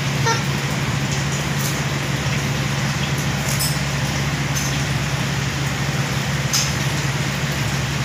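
Steady hum and whir of a room air cooler's fan running, with a few faint ticks about three and a half and six and a half seconds in.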